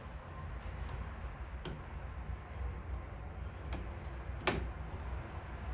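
Sharp plastic clicks and snaps, a handful of them with the loudest about four and a half seconds in, as a chrome trim bezel is pried and pushed out of a Jeep Grand Cherokee's grille, its clips letting go. A low steady rumble runs underneath.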